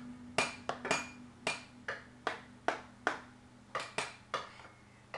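A metal fork clinking and tapping against a dish or tray about a dozen times, roughly two a second, each tap with a short ring; the taps stop after about four and a half seconds.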